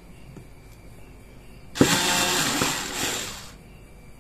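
Small electric drill used as a screwdriver, switched on about halfway in and running for just under two seconds before stopping sharply, backing out a small screw from a phone's frame.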